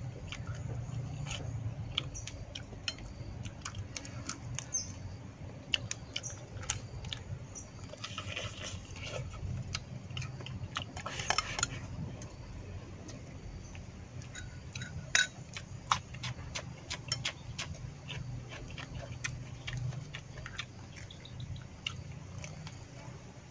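A person eating with chopsticks: close-up chewing with many small, irregular clicks of the chopsticks against a plate.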